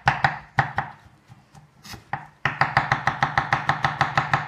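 Large kitchen knife slicing mushrooms on a wooden butcher-block cutting board: quick, crisp knife strokes against the board, a few at first, a pause of about a second and a half, then a fast, even run of about six strokes a second.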